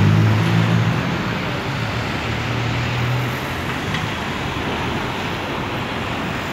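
Street traffic on a busy city avenue: a steady wash of passing cars, with a low vehicle engine hum that fades over the first second and dies away about three seconds in.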